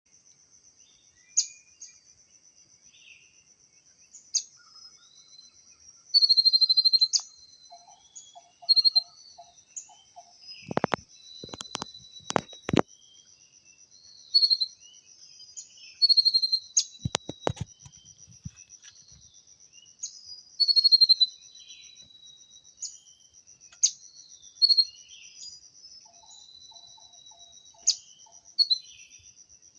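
Small birds chirping again and again, short sharp notes and down-slurred calls, as a decoy bird calls to lure wild birds in. A steady high buzz runs underneath, and a few sharp knocks come a little before halfway and again a few seconds later.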